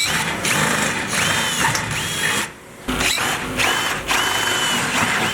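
Electric drill boring into steel: a grinding noise with a high, wavering squeal from the bit in the metal. The drilling stops for about half a second midway, then starts again.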